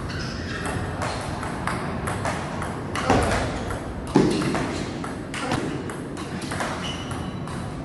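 Table tennis ball clicking back and forth off the paddles and table during a rally, a quick irregular run of sharp ticks, with two louder knocks about three and four seconds in.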